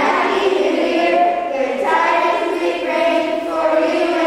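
A children's choir singing together, holding each note for about a second before moving to the next.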